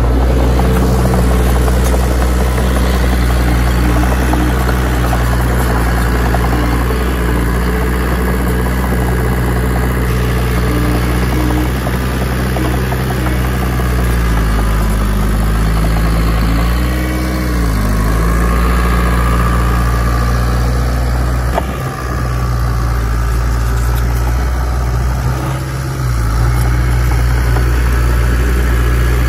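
Diesel engine of a Komatsu bulldozer running steadily. Its pitch sags for a few seconds about halfway, then comes back up, and the sound drops briefly twice near the end.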